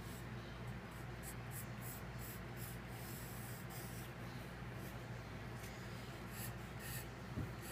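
Wooden graphite pencil sketching on paper: quick runs of short strokes, over a steady low hum, with a soft bump near the end.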